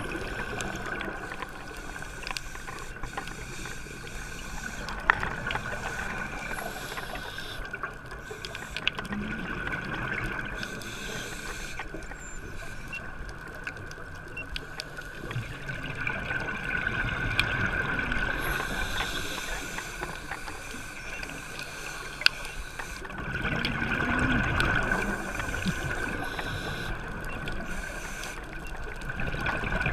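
Scuba breathing heard underwater: a diver's regulator with gurgling, rumbling rushes of exhaled bubbles that swell up a few times, over a steady high-pitched hum and occasional sharp ticks.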